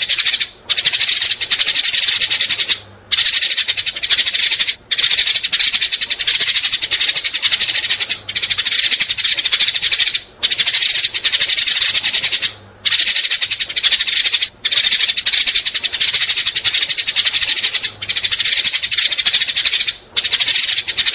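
House sparrows chirping: a loud, rapid, unbroken stream of high chirps, halted by short pauses every couple of seconds.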